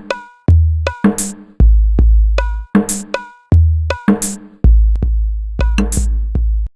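Electronic 'cek sound' DJ music built on gendang and rebana drum samples: long, heavy bass notes under sharp hand-drum strokes, some ringing with a clear tone, and bright splashes every second or two. It cuts off abruptly near the end.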